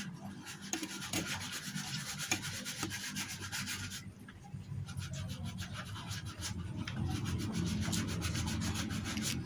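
Rapid, repeated rubbing strokes, pausing briefly about four seconds in, with a low steady hum in the second half.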